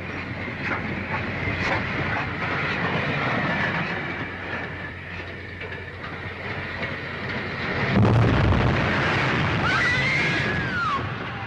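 Runaway railway passenger car rolling along the track on an old film soundtrack, its wheels clattering on the rails. About eight seconds in comes a sudden heavy low thud, followed by a short high gliding tone.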